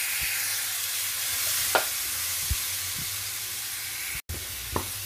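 Chopped onion, leek, tomato and carrot sizzling steadily in hot olive oil in a stainless steel pot, with a few light knocks. The sound drops out for an instant near the end.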